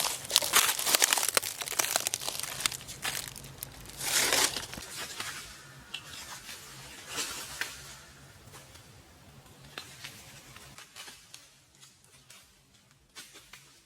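Rustling and crinkling handling sounds, like something being crumpled, with many short clicks; busiest in the first few seconds and thinning out toward the end.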